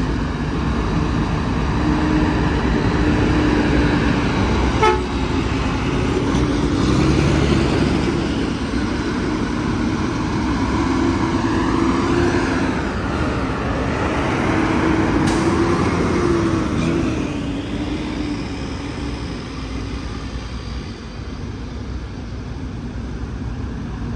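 Heavy diesel dump truck running, its engine drone wavering up and down in pitch over road rumble, easing off after about seventeen seconds.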